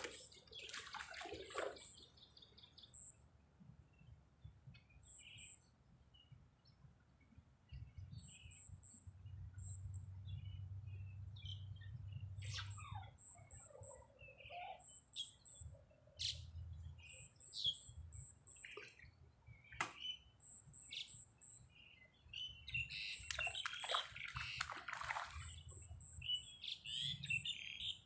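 Birds chirping and calling, with short repeated high chirps and a busier cluster of calls near the end, over a low rumble of wind on the microphone.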